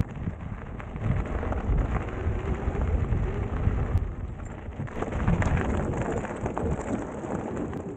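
Riding noise from a KTM Prowler Master electric mountain bike on a rough gravel desert track: tyres crunching over loose stones with scattered clicks and rattles, under an uneven low rumble of wind on the camera's microphone.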